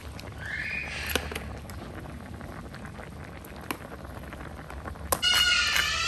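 Metal ladle clinking against an aluminium pot and a plastic bowl as soup is ladled out, with a few sharp clicks. About five seconds in, louder scraping with a squeaky tone as the ladle pushes chopped vegetables off a clay mortar into the pot.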